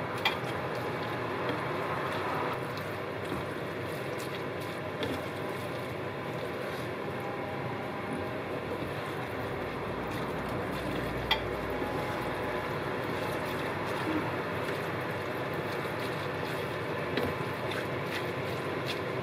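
A wooden spatula stirring and lifting noodles in a creamy sauce in a nonstick frying pan, with a few sharp taps against the pan, over a steady rushing background noise.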